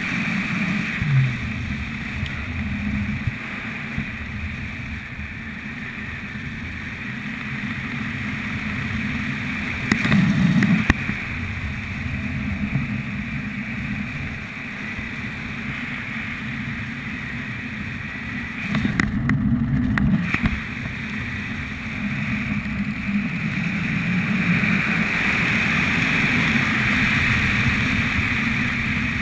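Wind buffeting the microphone of a parachutist's helmet camera during descent, a steady rushing noise with two louder gusts, about ten and nineteen seconds in.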